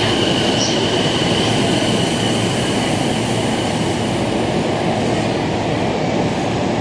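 JR East E233-series electric commuter train braking to a stop alongside the platform, with a steady high brake squeal over the rolling noise that fades out about three seconds in as the train halts.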